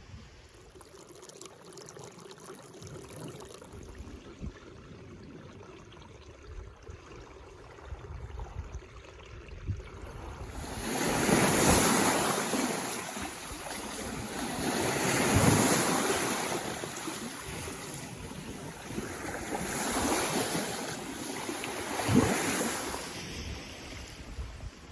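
Lake Ontario waves washing up on the beach, starting about ten seconds in: three long surges, each swelling and fading over a few seconds. A brief thump near the end.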